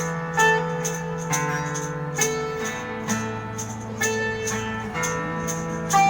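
Instrumental guitar music: a guitar struck about twice a second over low held notes that step down in pitch about a third of the way in and come back up near the end.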